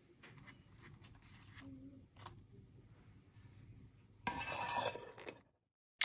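Handling of a lunchbox as it is packed: small taps and clicks, then about a second of loud crinkly, clattering noise as the lid goes on, and a short loud burst right at the end.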